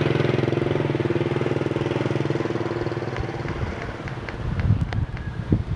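Motorbike engine running close by, its steady note fading away over the first four seconds. Then a few light clicks and low thumps of wind on the microphone.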